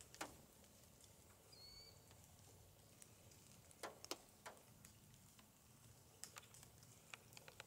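Near silence, broken by scattered faint clicks, a few at a time. About two seconds in there is one faint, short high chirp.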